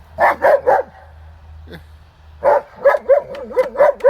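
German Shepherd barking: three quick barks right at the start, then a rapid string of about eight barks from about two and a half seconds in.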